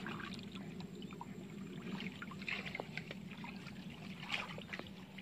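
Faint rustling of dry grass and soft steps in mud, with scattered small clicks over a low steady hum.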